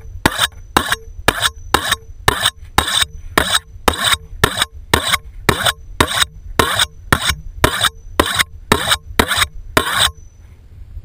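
Fillet knife being sharpened, its blade drawn against a sharpener in quick, evenly spaced strokes, about two a second. The strokes stop about ten seconds in.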